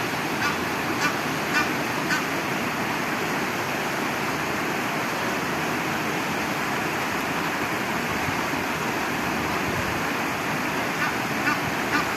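Short bird calls, repeated about twice a second for the first two seconds and a few more near the end, over a steady rushing noise of water or wind.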